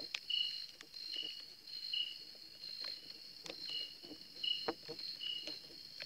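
Night insects calling: a steady high pulsing trill, with a second insect repeating a short chirp about once a second. A few sharp clicks sound through it.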